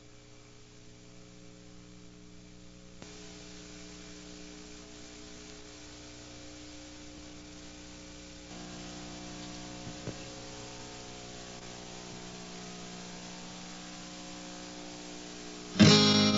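A low steady hum that gets a little louder in two steps, then a loud guitar strum rings out near the end.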